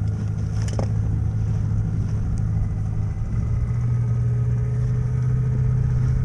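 Small outboard motor of an inflatable dinghy running steadily, its note stepping up slightly about three seconds in. A short knock about a second in.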